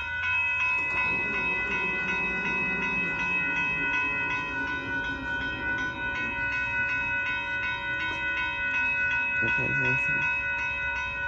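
Railroad grade-crossing warning bell ringing in fast, even strokes, its overlapping tones hanging in a steady ring, which means the crossing is activated ahead of an approaching train. A low, wavering hum runs underneath.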